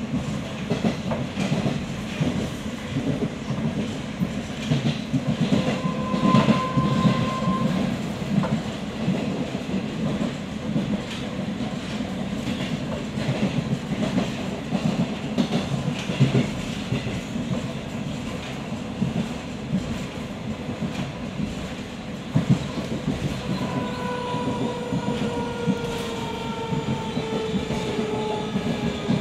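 Metro train running on an elevated track, heard from inside the car: a steady rumble with irregular rail clatter. In the last few seconds a whine from the electric traction motors falls slowly in pitch as the train slows.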